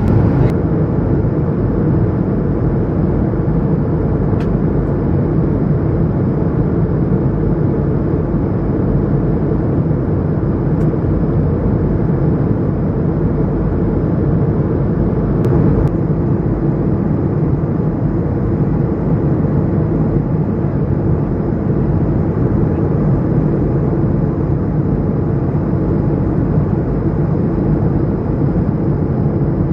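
Steady cabin drone of an Airbus A220-100 airliner: the deep, even roar of its engines and the air rushing past, with a faint high steady whine above it.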